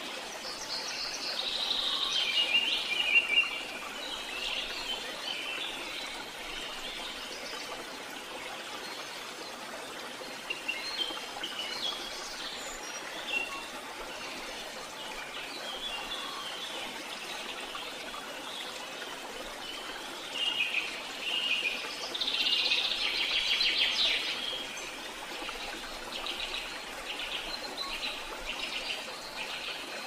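Birds chirping and singing in bursts over a steady rush of flowing water. The birdsong is loudest about two seconds in and again about two-thirds of the way through.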